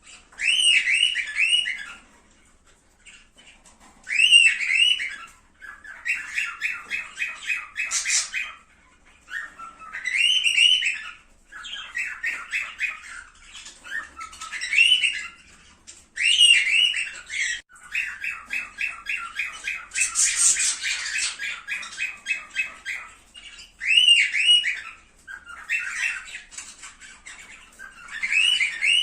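Cockatiels calling and singing: short arched whistled calls repeated every few seconds, alternating with longer stretches of fast, pulsing chatter.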